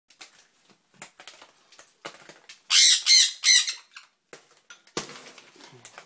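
Sun conure giving three loud, harsh squawks in quick succession about three seconds in, with light scratching clicks before and a brief rustling thump about five seconds in.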